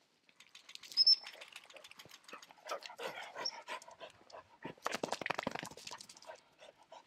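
A spaniel close by, making a run of rustles and breath sounds, with a short high tone about a second in.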